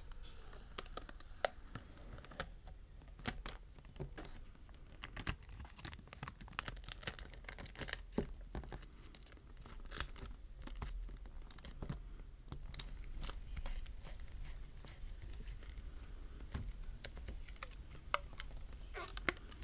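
Adhesive strips being peeled and pulled off a smartphone battery: irregular crackling and tearing, with many small sharp clicks.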